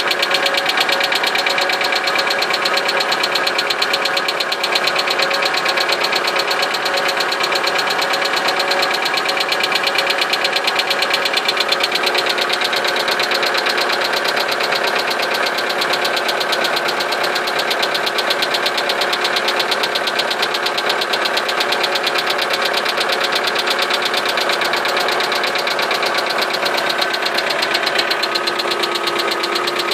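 Engine idling steadily with a fast, regular knock running through it.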